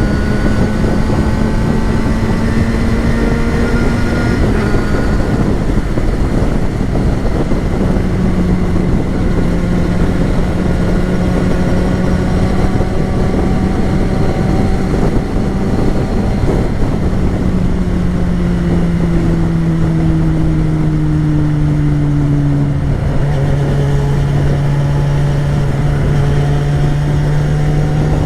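A 2013 Yamaha XJ6's 600cc inline-four engine under way, with a steady exhaust note over road and wind noise. Its pitch climbs slightly, drops at a gear change about four seconds in, holds steady, and then falls gradually for several seconds in the second half as the bike slows.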